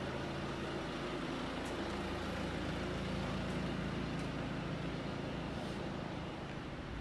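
Audi A6 TDI diesel engine idling steadily, with a few faint ticks.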